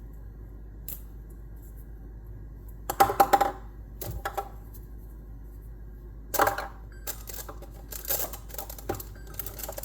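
Light clicks and knocks of small hard objects being handled. There is a quick cluster of knocks with a short ring about three seconds in, another knock around six and a half seconds, and a run of small irregular clicks near the end.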